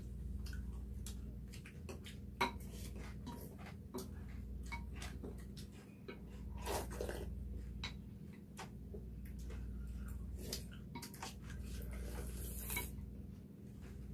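Spoons clinking and scraping against glass bowls of cereal and milk as people eat, in many short scattered clicks, with a couple of longer noisy rasps about seven seconds in and near the end. A steady low hum runs underneath.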